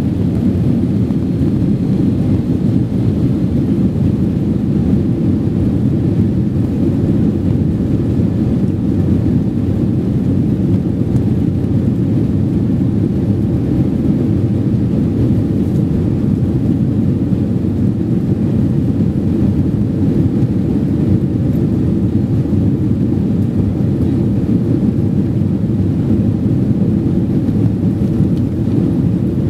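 Boeing 767-300ER at takeoff thrust, heard inside the cabin: a loud, steady, deep rumble of the twin jet engines and airflow through the end of the takeoff roll, lift-off and initial climb.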